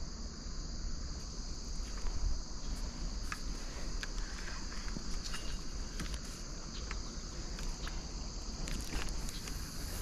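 A steady, high-pitched chorus of insects chirring without a break, with a few faint clicks scattered through it.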